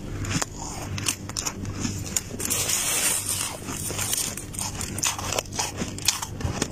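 Freezer frost crunching and crackling: many quick crisp crunches, with a hissing scrape about three seconds in, over a low steady hum.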